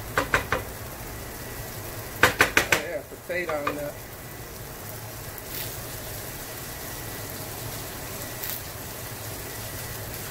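Food sizzling steadily on the stove as cherry tomatoes char in a dry cast-iron skillet. A wooden spoon stirring the green beans knocks sharply against the pan: four quick knocks right at the start and a run of about six around two seconds in.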